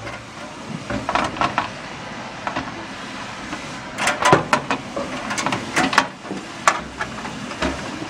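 A motherboard being set into a steel PC case and shifted about, giving a scatter of irregular clicks, knocks and light scrapes as it bumps the case and the I/O shield; the loudest knock comes about four seconds in.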